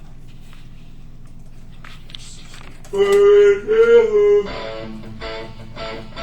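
A low steady hum, then music starts about halfway in: a loud held melodic phrase, followed by a quieter guitar-led backing track.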